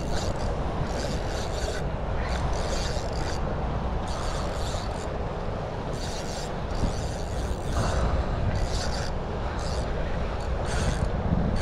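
Wind rumbling on the microphone, with short raspy hisses recurring irregularly about every second.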